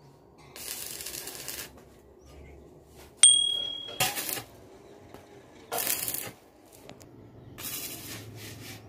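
Arc welding on a steel staircase frame: several short bursts of welding sizzle, each lasting up to about a second. About three seconds in, a sharp click with a high ringing ding is the loudest sound.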